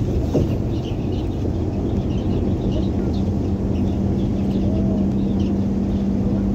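Cabin noise of a PAZ-320302 bus driving at speed: steady engine and road rumble, joined by a steady hum about three and a half seconds in. Faint high-pitched chirping squeaks are scattered throughout.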